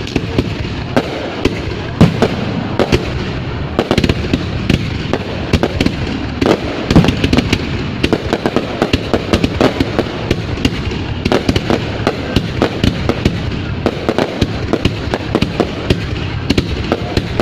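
Fireworks going off in a dense, continuous barrage of bangs and crackles, with the biggest booms about two and seven seconds in.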